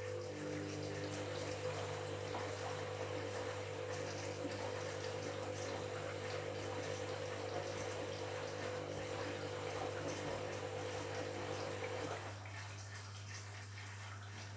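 Washing machine running with water flowing in the drum, over a steady machine hum that stops about twelve seconds in.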